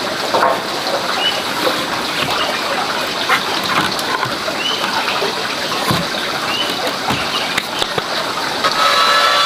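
Heavy hardwood posts knocking dully against each other and the ground as they are set down and shifted, several separate knocks over a steady rushing background noise, with short high chirps repeating every second or two.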